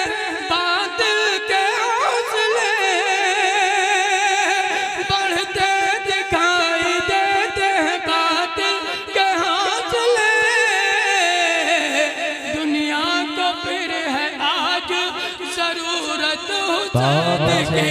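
A man singing devotional Urdu verse in a classical style, drawing out long ornamented notes that waver and glide in pitch.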